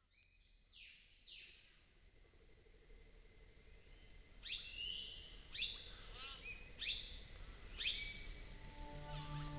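Forest birds calling: short, sharp notes that sweep down in pitch, repeated about once or twice a second and growing louder from about halfway in. Soft music begins near the end.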